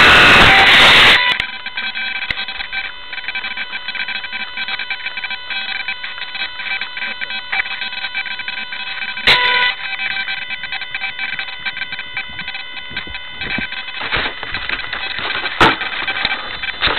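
A loud rushing noise cuts off suddenly about a second in. After it comes the steady electrical whine of a keyfob camera, several fixed high tones, with scattered clicks and crackles while the downed micro RC plane lies still.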